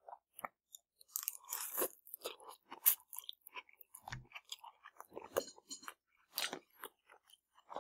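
Close-up eating sounds: rice noodles and chicken being chewed, a run of short irregular mouth clicks, the loudest about three seconds in.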